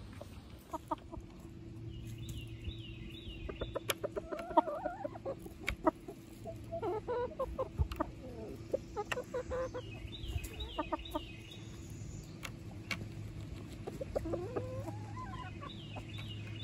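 Chickens clucking softly in short scattered calls, with sharp clicks here and there.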